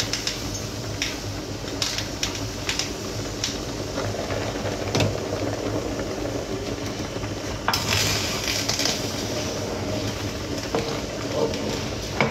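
Light clinks and scrapes of utensils against a pan, a few scattered knocks and a longer scraping stretch about eight seconds in, over a steady low hum.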